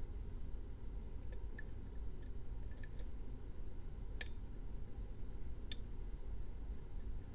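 Faint, sharp metallic clicks and ticks, about half a dozen at irregular intervals, from a lock pick working the pins of a six-pin ASSA Max+ restricted lock while it is being picked, over a steady low rumble.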